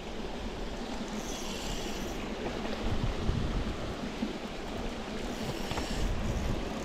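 Steady wash of water and wind noise, with a higher hiss that swells twice.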